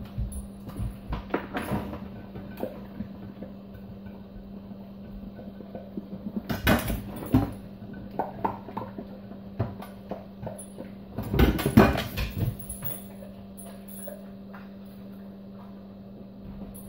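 A dog nosing through dishes in a stainless-steel kitchen sink: irregular clinks and knocks of pans and utensils, loudest in two clattering bursts about seven and twelve seconds in.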